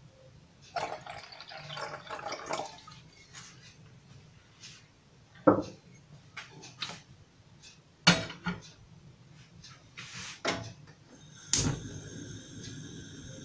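Water poured from a glass jug into a small steel pot for about two seconds. Then come several sharp metal knocks and clatters, the loudest as the pot is set on the gas stove near the end. After it, a steady low rush of the lit gas burner, with faint steady whines.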